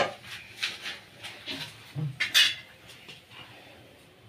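A few short scrapes and light clinks of cookware against a non-stick frying pan full of cooked rice, the loudest a little after two seconds in, then quieter.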